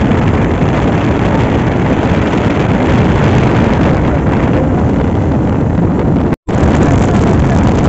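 Loud, steady wind rumble on the microphone mixed with vehicle noise. The audio cuts out completely for a split second about six and a half seconds in.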